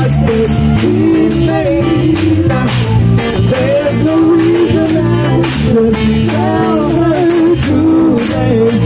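Live rock band playing: a man singing a lead vocal into a microphone over electric guitar, bass guitar and drum kit.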